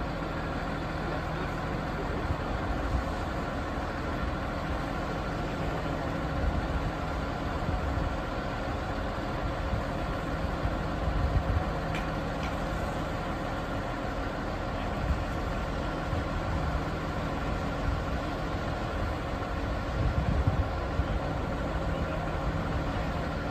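A steady engine hum of an idling vehicle over a low rumble.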